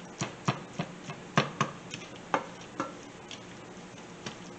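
Black plastic spatula tapping and scraping against a nonstick frying pan while stirring ground pork: a string of sharp, irregular taps over the first three seconds, then they stop.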